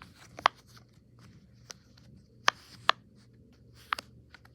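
Silicone pop-it fidget bubbles being pressed, giving a handful of sharp pops at irregular intervals.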